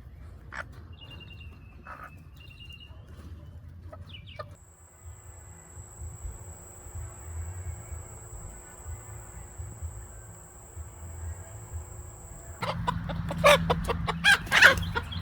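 Chickens clucking: a few faint calls in the first few seconds, then loud, dense clucking and squawking over the last two and a half seconds. A faint, steady, high-pitched whine runs through the middle stretch.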